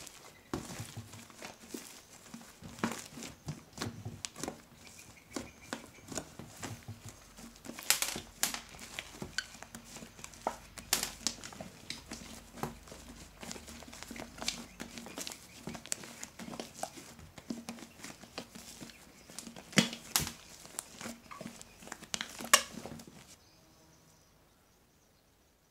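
Hands squeezing, stretching and kneading a thick slime with small beads mixed in: a dense run of sticky squishes, crackles and sharp pops that stops about 23 seconds in.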